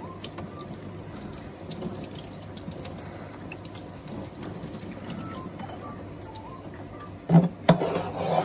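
Tap water running onto a sculpin and into a stainless steel sink as its belly cavity is rinsed and rubbed clean of the blood line under the stream. Near the end, a few loud knocks and scrapes against the sink.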